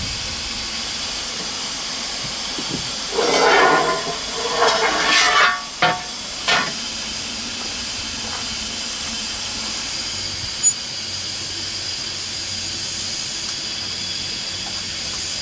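Steady hiss of steam in the cab of the 1909 steam locomotive A 428. A few short louder noises come between about three and seven seconds in, and a single sharp click near eleven seconds.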